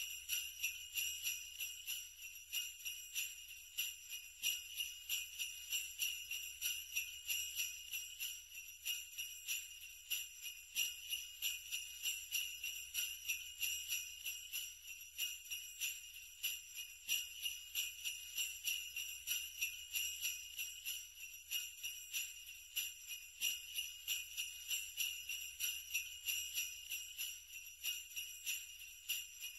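Sleigh bells jingling in a steady, rapid rhythm that never lets up.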